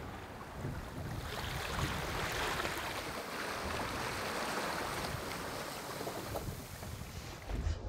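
Sea water rushing and splashing along the side of a sailboat's hull as it moves under way, growing louder about a second in. Wind rumbles on the microphone underneath.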